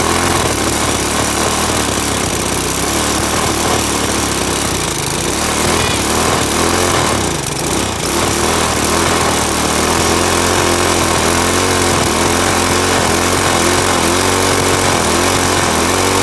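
Go-kart's Briggs & Stratton small engine running, its speed wavering up and down as the throttle cable is worked by hand. About seven seconds in, the engine sags briefly and picks back up.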